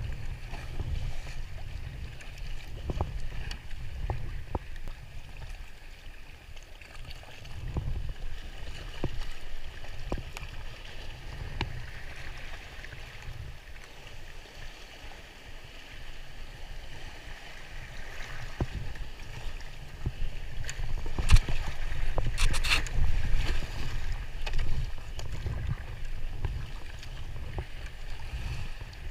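Kayak paddle strokes and water splashing and lapping along the hull of a folding sea kayak, with a steady low rumble of wind on the microphone. Scattered small splashes, with a louder run of splashing about two-thirds of the way through.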